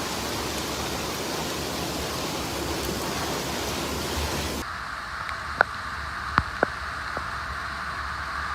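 Steady rushing hiss of a heavy downpour and running floodwater. About halfway through it cuts abruptly to a thinner hiss broken by a few sharp clicks.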